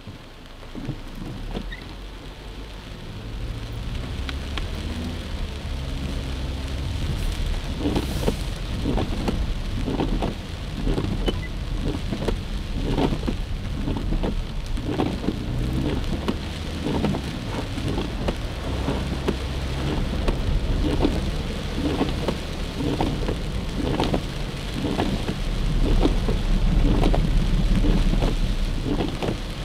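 Rain pattering on a car's windshield and roof with many sharp drop taps, heard inside the cabin over the low rumble of the car driving on a wet road. The sound grows louder in the first few seconds.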